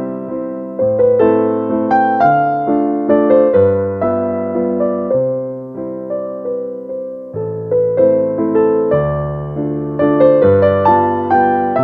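Background music: a gentle piano or electric piano melody with notes struck and decaying in a steady rhythm.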